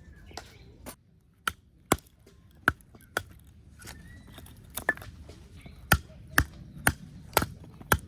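A series of sharp knocks, like chopping. They come irregularly at first, then about two a second near the end.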